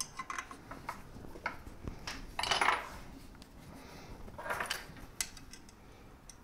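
Allen key and small bolts clicking and clinking against the aluminium frame of a 3D printer being assembled, with two brief scraping rattles about two and a half and four and a half seconds in.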